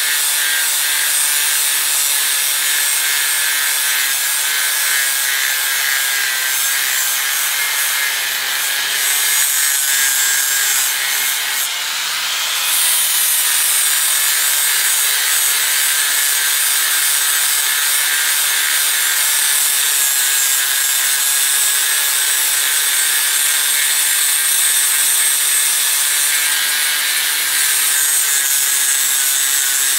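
Angle grinder running with an abrasive sanding disc pressed against a steel katana blade: a steady motor whine over the rough scraping of the disc on the metal as it strips off rust. It eases off briefly about twelve seconds in, then picks up again.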